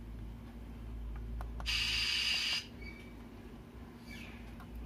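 Small speaker on a car USB MP3 player amplifier giving FM radio static: a steady hiss for about a second that cuts off suddenly, after a few sharp clicks of the front-panel buttons, over a steady low hum from the amplifier.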